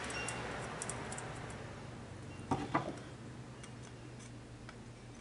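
Small metal carburetor parts and a hand tool being handled: faint light ticks and taps, with two sharper clicks close together about two and a half seconds in.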